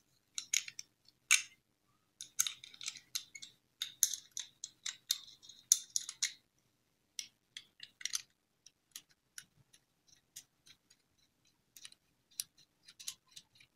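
Threaded metal barrels of a Conrad Götz violin chinrest turned by hand: irregular small clicks and scrapes of the threads and fingers. They come thickly for the first six seconds and more sparsely after that.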